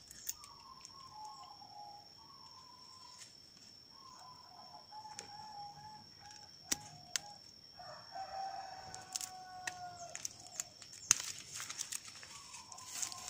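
Roosters crowing repeatedly in the background, several drawn-out wavering crows, over a steady high whine. About seven seconds in come two sharp clicks from pruning shears at the dragon fruit's stem, and near the end a burst of rustling with a louder click.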